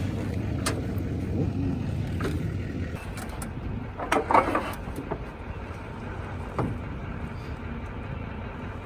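KTM dirt bike being rolled down a loading ramp off a pickup truck bed: a few light clicks, then a clatter of knocks and rattles about four seconds in as it comes down the ramp, over a steady low rumble. The engine is not running.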